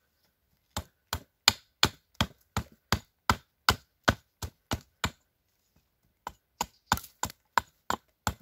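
Hatchet gripped short near its head, chopping quick light blows into a piece of wood to rough out a mallet: about three strikes a second, with a pause of about a second past the middle before the chopping resumes.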